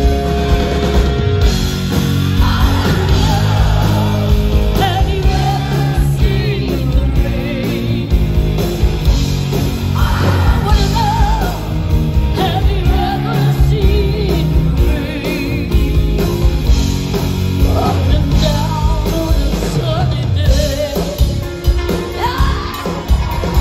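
Live rock band playing with a woman singing lead over it, amplified through a stadium PA.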